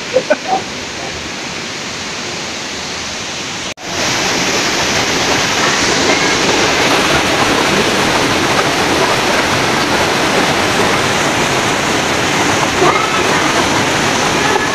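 Steady rush of a fast-flowing rocky mountain stream, fainter for the first few seconds, then, after a brief break about four seconds in, much louder and closer.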